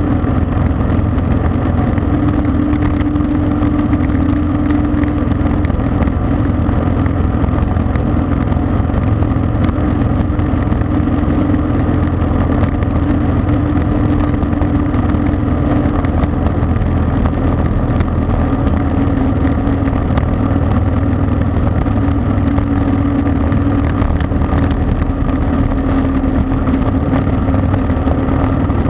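Yamaha V Star 1300 V-twin motorcycle cruising at a steady highway speed. Its engine note holds nearly level under wind and road noise.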